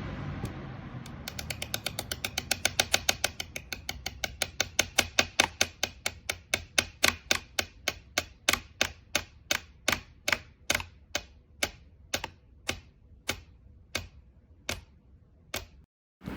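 A Pelonis 3-speed box fan winding down after being switched off: the rush of air fades while a regular clicking from the spinning fan slows steadily, from about seven clicks a second to about two.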